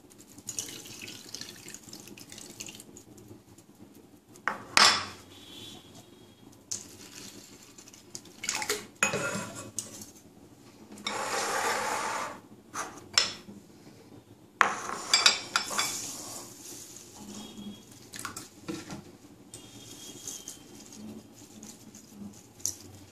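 Rinsing rice and urad dal by hand: ceramic and steel bowls clinking several times, loudest about five seconds in and again around fifteen seconds, with rinse water swished and poured off for about a second near the middle.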